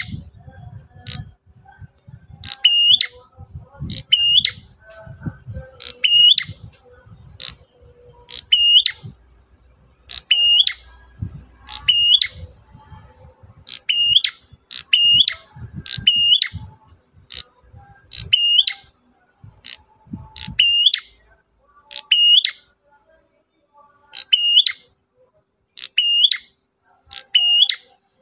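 Prenjak merah calling: a short, sharp, high chip, much the same each time, repeated about once a second with brief pauses. A low rumble runs under the calls for the first two-thirds.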